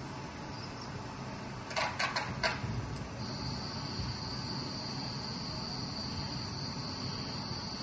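Crickets chirring steadily and high-pitched in the installation's soundtrack, coming in about three seconds in, heard over a low steady hum in the gallery room. Just before they start there are four quick sharp clicks.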